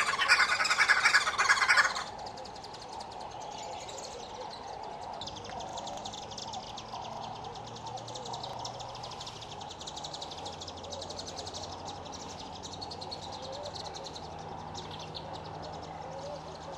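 Red-billed wood hoopoes' loud, dense chattering cackle, which stops abruptly about two seconds in. After that, a much quieter, rapidly pulsing high chirr with faint wavering bird calls under it.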